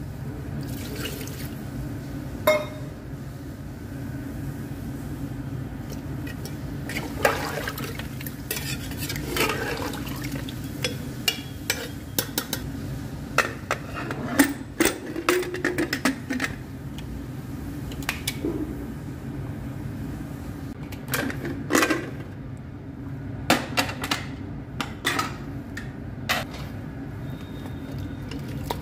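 Metal utensils and the lid of an aluminium pressure cooker clinking and knocking against the pot, in scattered sharp clinks over a steady low hum.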